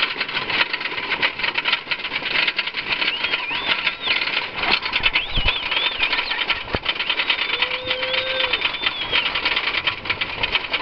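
Wooden roller coaster train running fast along the track, a dense, rapid rattle throughout. Riders scream in high, wavering cries over it twice in the middle.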